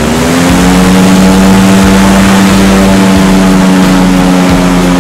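Airboat engine and propeller running at high power: a loud drone that rises in pitch in the first half-second and then holds steady.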